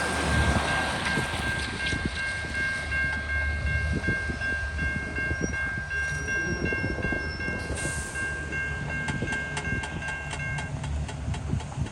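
Norfolk Southern train passing at speed: a low rumble with a steady high multi-note tone held for most of the time, and wheels clicking rapidly over the rail joints near the end.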